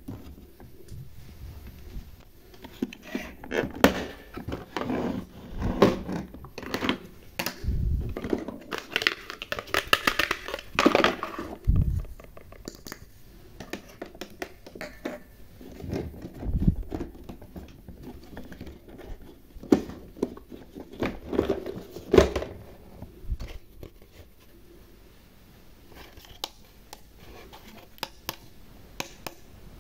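Hard plastic parts of a toy mini kitchen set being handled: irregular clicks, knocks and rubbing as the case is opened and its toy stovetop buttons are pressed.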